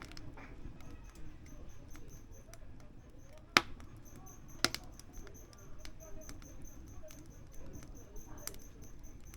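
Firewood burning in a wood stove, crackling steadily with many small ticks and two sharp pops about three and a half and four and a half seconds in. A faint, high, even ticking about five times a second runs behind it.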